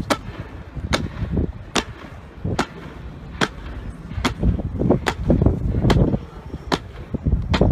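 Honor guards' boots stamping in unison on stone paving as they march, a sharp crack about every 0.8 seconds. A low, gusty rumble runs underneath.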